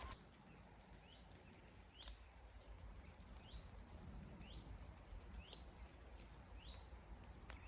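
A bird's short, high call that rises in pitch, repeated about once a second, faint, with two faint clicks.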